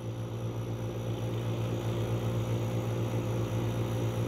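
West Highland White Terrier giving a low, continuous growl while lying on its back, slowly growing louder.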